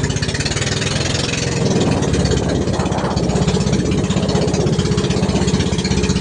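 A small engine running steadily with a fast, even pulse; its note shifts about two seconds in.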